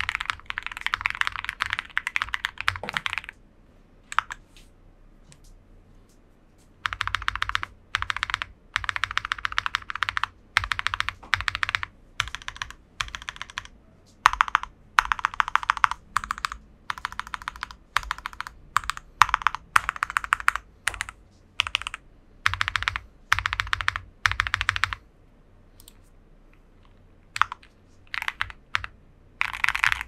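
Rakk Pirah Plus mechanical keyboard with Gateron Mountain Top switches being typed on, giving a poppy clack on each keystroke. The typing stops about three seconds in and comes back in quick bursts with short pauses from about seven seconds on. After that it thins to a few lone key presses, and fast typing picks up again at the very end.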